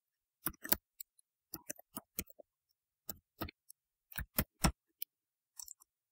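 Computer keyboard keystrokes: about a dozen separate key clicks at an uneven typing pace, the loudest about four and a half seconds in.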